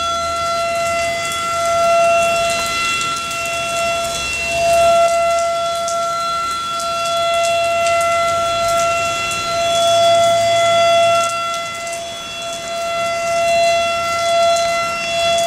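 Outdoor civil-defense (air raid) siren wailing on one steady pitch, its loudness swelling and fading every few seconds.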